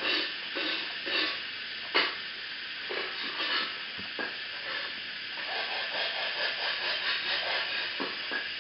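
Dog eating dry kibble: irregular crunching and chewing, with one sharper click about two seconds in, over a steady hiss.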